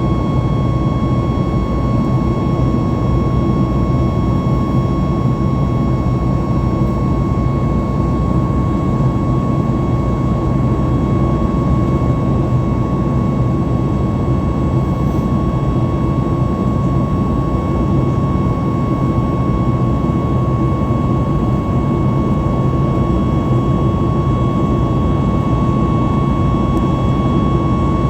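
Inside the cabin of a Boeing 737 MAX 8 in its climb after takeoff: its CFM LEAP-1B turbofan engines and the airflow make a steady, loud rumble with a constant high whine above it.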